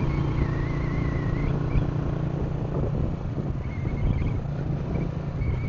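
Steady low drone of a running vehicle engine, with a few faint warbling high-pitched sounds over it.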